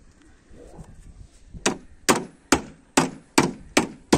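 Small roofing hammer striking the sheet-metal standing seam of a roof panel to true up its end against the gable trim: a run of about seven sharp blows, roughly two a second, starting about a second and a half in.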